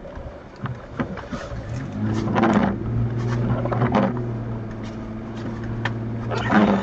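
An off-road vehicle's engine running at a steady pitch from about two seconds in, with scattered clicks and knocks over it.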